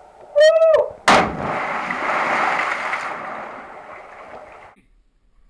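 A short shout, then just after a second a loud splash as a jumper plunges feet first into a canyon pool, followed by several seconds of churning, hissing water that slowly dies away.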